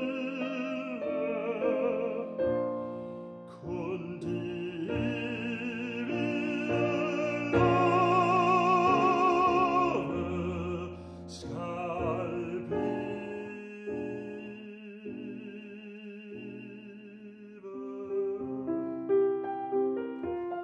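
Tenor singing a classical art song with wide vibrato over grand piano accompaniment, swelling to its loudest about halfway through. Near the end the voice drops out and the piano carries on alone.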